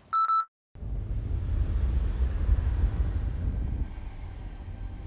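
A short film-leader countdown beep. After a moment of silence comes a deep, loud cinematic rumble that builds, then eases off after about three seconds.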